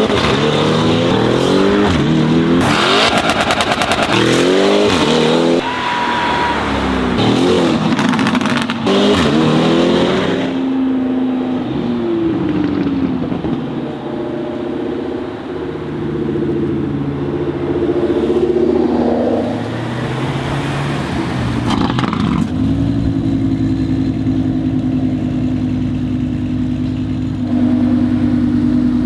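Mansory Venatus Lamborghini Urus's twin-turbo V8 revving hard several times in quick succession, each rev a rising sweep, with a sharp exhaust crack near nine seconds. After that the engine runs at lower, steadier revs, rising briefly twice before settling.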